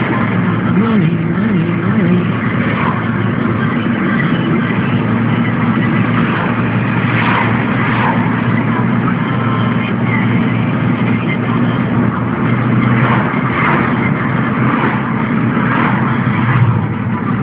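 Car engine and tyre-on-road noise heard from inside the cabin while driving at a steady speed.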